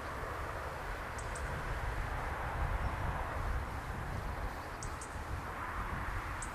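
Steady outdoor background hiss with a low rumble, and a small bird giving short high chirps in little groups, about a second in and twice more later.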